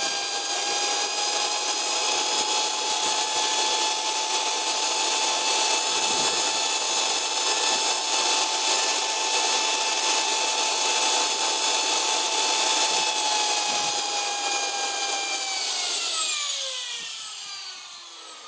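Small homemade jet engine's turbine spinning at steady speed, a high whine over a hiss. About 16 seconds in the whine falls in pitch and fades as the turbine spools down.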